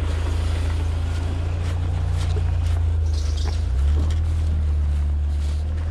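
A van's engine running close by, a steady low drone whose pitch shifts once about four seconds in.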